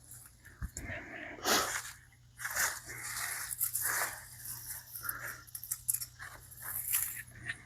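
Garden foliage rustling and crunching in a string of short, irregular bursts.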